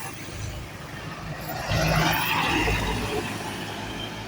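Bus engine running as a bus passes close by: a low rumble that swells loudly about two seconds in, then slowly fades.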